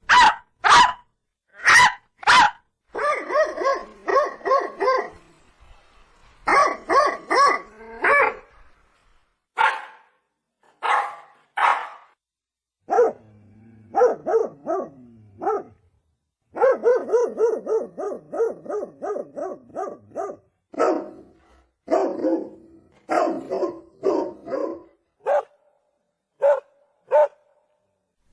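Dog barking: single barks and rapid runs of about three to four barks a second, in separate bursts with short silent gaps between them.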